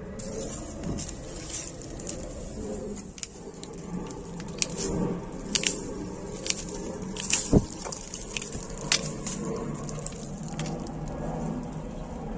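Dry aerial roots and fibres of a weeping fig being torn and snapped off a stone wall: irregular sharp snaps and crackles over rustling, the loudest snap about halfway through.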